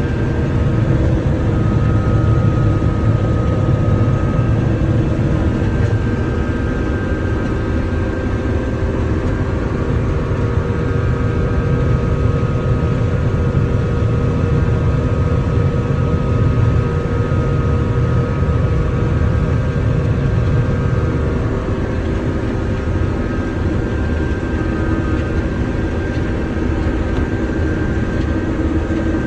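John Deere 9500 combine running steadily while harvesting corn: an even drone of the diesel engine and threshing machinery, with a few faint steady whining tones over it.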